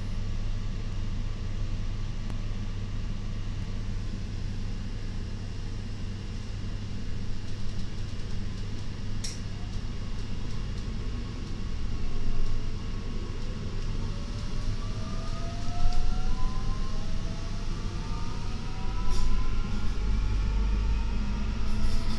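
Queensland Rail SMU220 electric multiple unit heard from inside the car: a steady low hum, a sharp click about nine seconds in, then from about twelve seconds the VVVF traction inverter's whine in several parallel tones rising steadily in pitch as the train pulls away and accelerates. The uploader takes it for a Bombardier IGBT VVVF inverter.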